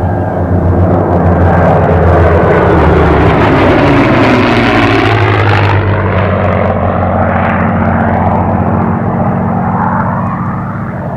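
A P-51D Mustang's Packard Merlin V-12 and a P-38 Lightning's twin Allison V-12s drone together as the pair flies past in formation. It is loud through the first half, the tone sweeps down about halfway through as they go by, and it fades slightly near the end.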